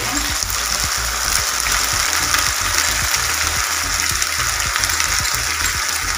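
Chopped onions and a spoonful of paste frying in hot oil in a pan: a steady sizzle with fine crackling.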